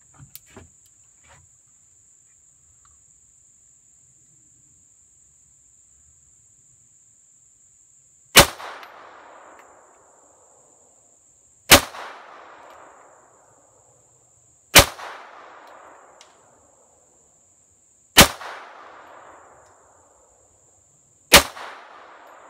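Five shots from a Colt 1903 .32-calibre pistol, about three seconds apart, each followed by an echo that dies away over about two seconds.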